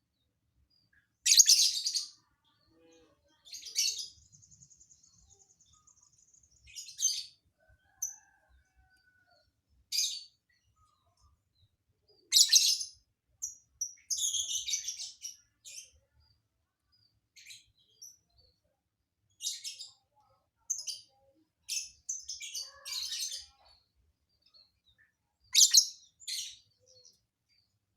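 Lovebird singing in short bursts of high, scratchy chirps and squeaks separated by pauses, with one buzzy trill about four seconds in. The song is filled with mimicked phrases.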